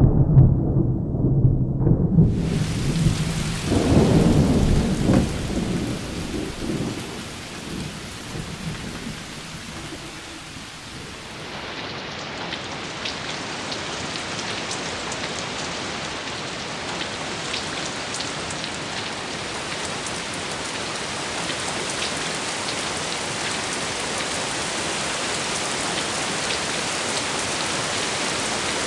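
Thunder rumbling over heavy rain, the rumble dying away within the first several seconds. From about twelve seconds in, steady rain falls on a surface with many distinct drop ticks.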